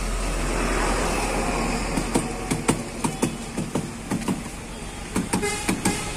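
Street traffic noise swells and fades as a vehicle passes, then a run of sharp, irregular metallic clicks and knocks, with a short ringing clink near the end.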